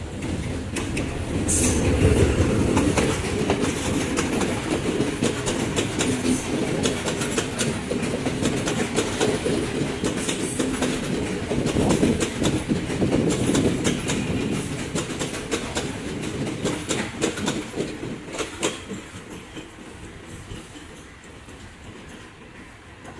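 Passenger train's carriages running past close by, wheels clattering over the rail joints in a dense clickety-clack. The noise fades steadily over the last several seconds as the train draws away round the curve.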